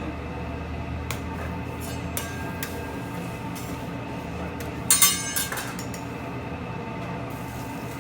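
Metal utensils clinking and clattering at a hibachi griddle over a steady background hum, with a loud burst of clatter about five seconds in.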